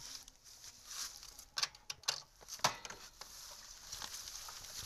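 Irregular rustling and a few sharp clicks and scrapes as a motorcycle is handled and wheeled over dry grass, its engine off.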